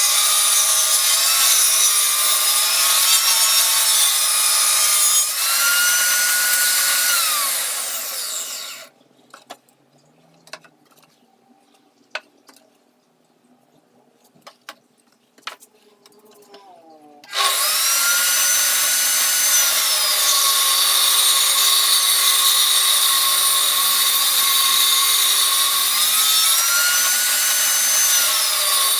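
An electric power tool cutting wood, its motor pitch dipping and recovering as it bites into the wood. About a third of the way in it winds down with a falling pitch, leaving a few seconds of quiet broken by a few sharp knocks. It then starts again abruptly, its pitch rising and settling, and keeps cutting.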